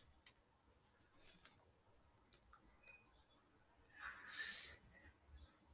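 Faint scratching and small ticks of a pencil writing on paper, with one short loud hiss of breath about four seconds in.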